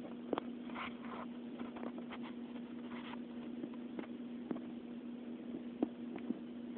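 A cat crunching potato chips: scattered short, crisp crunches and crackles, with a steady low hum underneath.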